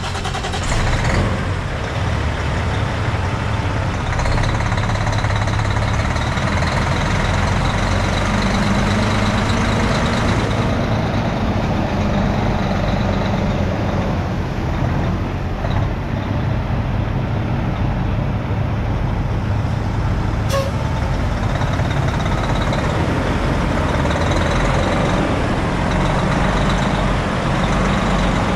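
Heavy diesel engine of a 2004 Mack CL733 truck idling steadily, with one short click about twenty seconds in.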